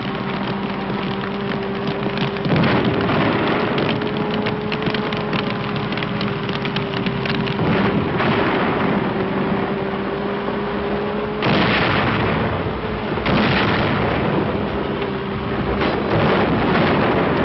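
Dense crackling and rumbling noise, like fires burning, over a steady low hum, on a worn old film soundtrack. The noise changes abruptly several times.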